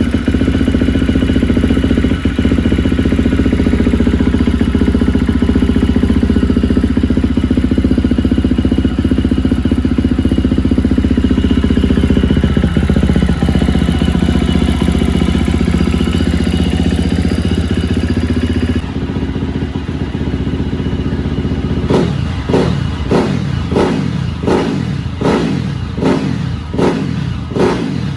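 Freshly reassembled KTM dirt bike engine running at a steady idle, then revved in quick blips, about ten rises and falls in pitch over the last six seconds.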